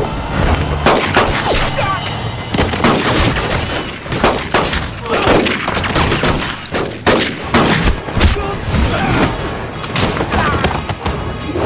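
Action-film fight sound effects: a dense run of gunshot-like bangs and hit impacts, with short shouts in between.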